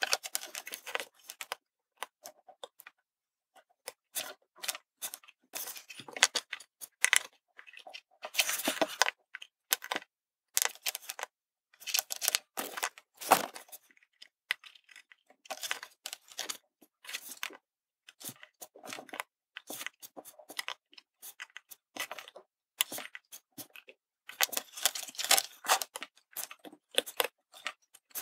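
Steel tweezers and a small circuit board handled on a wooden tabletop: irregular clusters of small clicks, taps and scrapes with short pauses between, as tiny surface-mount parts are picked up and set in place.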